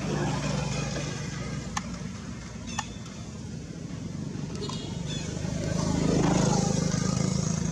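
A motor vehicle's engine hums nearby, easing off after the start and then growing louder again as it passes close, loudest near the end. A couple of sharp clicks sound about two and three seconds in.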